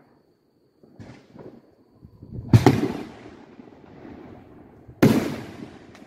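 Aerial fireworks going off: a few small pops, then two loud booms about two and a half seconds apart, each echoing away.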